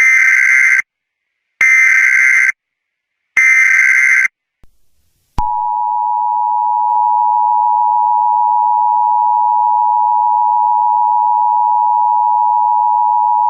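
Emergency Alert System tones: three short bursts of the SAME digital header, a harsh buzzy data screech each lasting just under a second, then a brief pause and the two-tone EAS attention signal, a steady dissonant dual-tone beginning about five seconds in.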